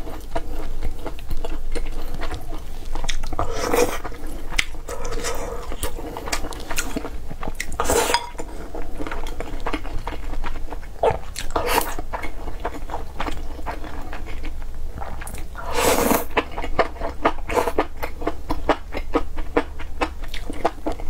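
Close eating sounds: chopsticks clicking against a porcelain rice bowl and a person chewing mouthfuls of rice and braised stew. Many short clicks run throughout, with a few louder bursts spaced a few seconds apart.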